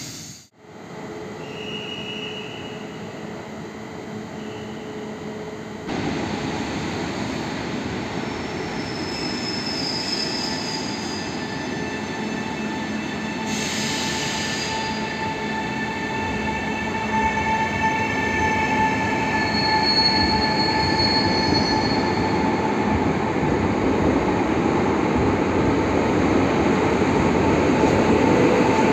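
A Koleje Dolnośląskie 48WEc (Newag Impuls) electric multiple unit starts pulling out of the station. Its electric drive whines in several steady high tones that grow louder as it gathers speed, with a brief hiss of air about halfway through.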